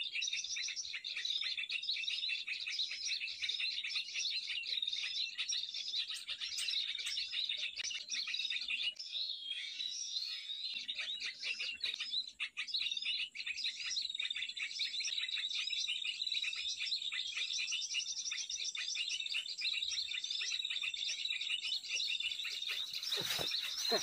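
Dense, unbroken chirping and twittering of small birds, the calling a bird-lure recording plays to draw birds to lime sticks. A thin, high, steady tone joins it from about halfway until near the end.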